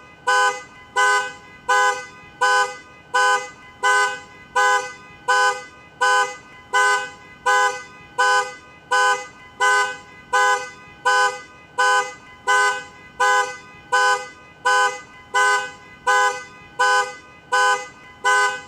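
Car alarm sounding the car's horn in short, evenly spaced honks, about three every two seconds, keeping the same pace throughout. Each honk is the horn's two notes sounding together.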